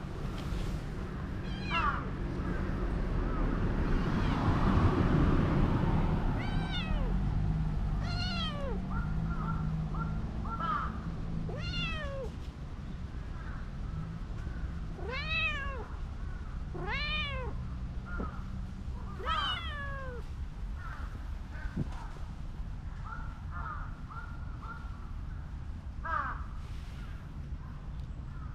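A cat meowing again and again, about seven drawn-out meows that rise and fall in pitch, clustered in the middle of the stretch, with a few shorter calls around them. Early on a rushing noise swells and fades, the loudest sound here.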